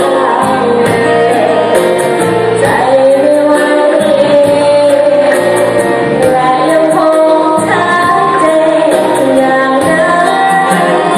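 A voice singing a melody over band accompaniment with a steady ticking cymbal beat, a song from a likay performance.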